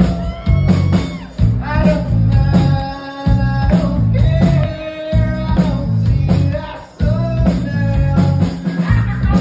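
Live blues-rock band playing on stage: electric guitars, bass and drums, with a man singing into the microphone.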